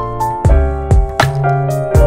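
Background music: keyboard chords over a bass line, with a steady beat.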